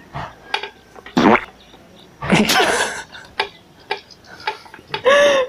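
A series of fart sounds of different lengths, the last a short pitched blurt that rises and falls, with laughing in between.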